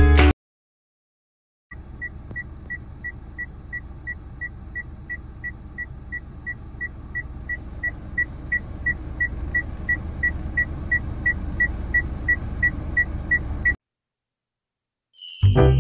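Kia Morning (Picanto) cabin with the engine idling as a low steady hum, under a high beep that repeats about three times a second: the car's reverse warning beep, sounding with the rear-camera view on screen. Both stop together, and music starts near the end.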